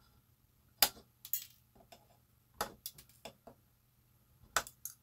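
Small wire cutters snipping the excess leads of freshly soldered capacitors on a printed circuit board: a series of sharp snips and small clicks, the loudest about a second in and others spread through the rest.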